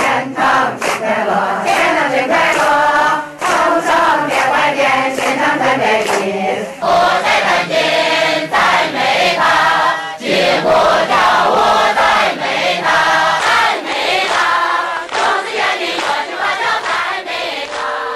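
A congregation singing a joyful Chinese hymn together in unison, with sharp strikes keeping the beat.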